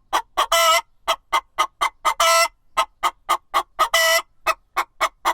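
Chicken clucking: a steady run of short clucks, about four a second, with three longer calls mixed in.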